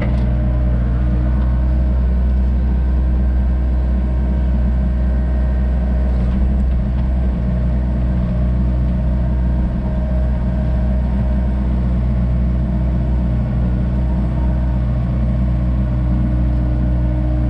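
Komatsu excavator's diesel engine running steadily while digging.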